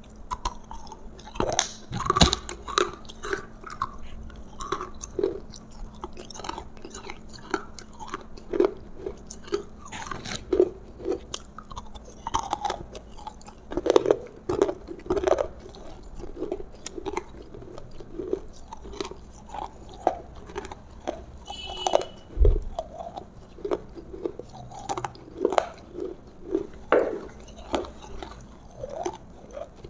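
A person chewing and biting roasted food close to the microphone, with wet chewing and irregular crunchy crackles. There is a single low thump about two-thirds of the way in.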